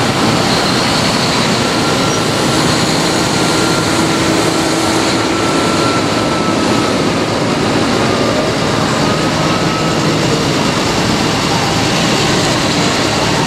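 A procession of modern diesel farm tractors driving past one after another, led by a JCB Fastrac with New Holland and John Deere tractors behind. Their engines make a steady, continuous drone.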